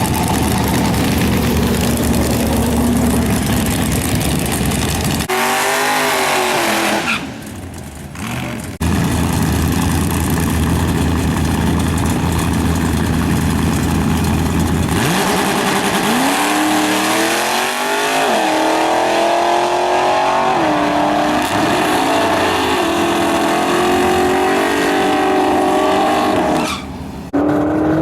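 Ford Lightning pickup's V8 engine at the drag strip, running steadily at first, then revving under acceleration. Its pitch climbs and drops back several times as it shifts up through the gears. The sound cuts off abruptly twice, about seven seconds in and near the end.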